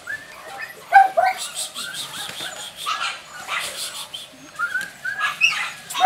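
Jack Russell Terrier puppies yipping and whining at play, a run of many short high-pitched calls, the loudest about a second in.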